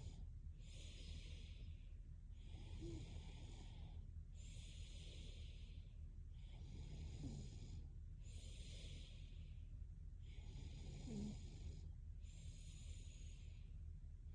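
A sleeping young woman's slow, heavy breathing with light snoring: a steady train of airy in-and-out breaths about a second long each, with a faint low snore catching on roughly every other breath.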